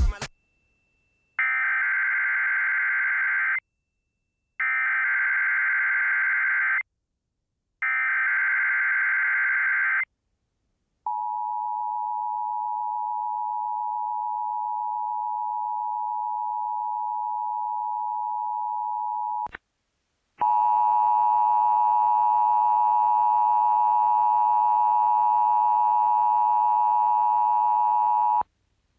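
Emergency Alert System tones from a Sage Endec: three warbling SAME data header bursts of about two seconds each, then a steady single alert tone (the NOAA Weather Radio 1050 Hz tone) for about eight seconds, then the harsher two-tone EAS attention signal for about eight seconds, announcing a Tropical Storm Warning.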